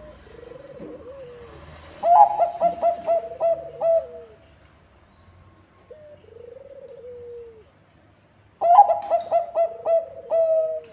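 Zebra dove (Bangkok-type perkutut) song, given twice: a quick run of about eight short coos ending in a longer held note, about two seconds in and again near the end. Softer, drawn-out falling coos sound between the two runs.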